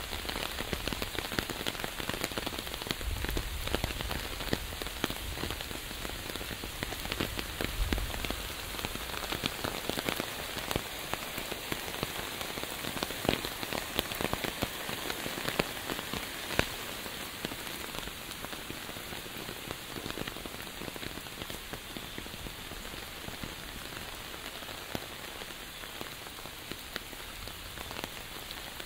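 Steady rain falling: an even hiss of rainfall dotted with many small, sharp drop hits.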